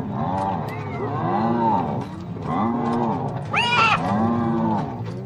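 Spotted hyenas calling while squabbling: a run of moaning calls that rise and fall in pitch, about one a second, with a higher squeal about three and a half seconds in.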